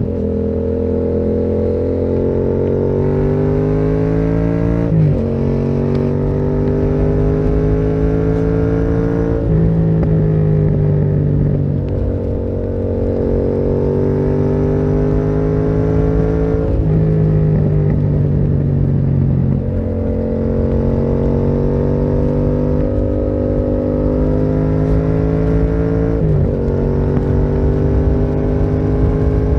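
Yamaha MT-07's parallel-twin engine through a Termignoni exhaust, running under way. Its pitch drifts gently and steps abruptly several times as gears are changed.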